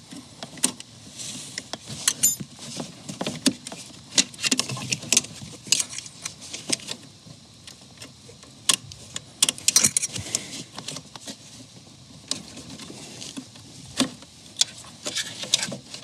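Irregular small clicks, taps and rattles of plastic wiring connectors and a metal pick being worked by hand at an airbag control module while its plugs are unlatched and pulled.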